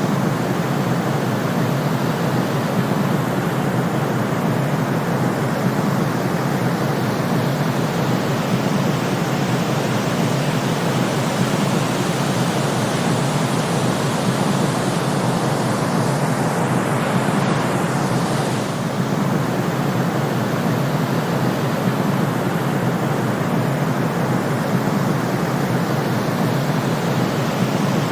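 Steady white noise played as a sleep and countdown background: an even hiss that stays much the same, heaviest in the lower middle, with a slight dip about two-thirds of the way through.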